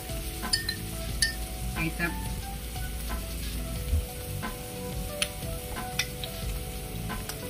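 Prawns and onions sizzling in a wok over a gas flame in a little water, with scattered sharp pops from spattering.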